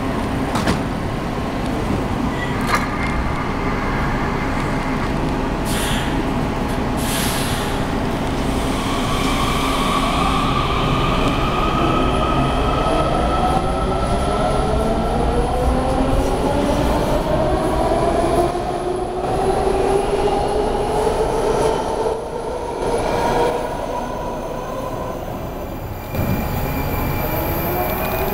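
WMATA 7000-series metro train pulling away from the platform: its traction motors whine in several tones that rise steadily as it gathers speed, over wheel-on-rail rumble. The rising whine starts about eight seconds in and fades near the end as the train leaves.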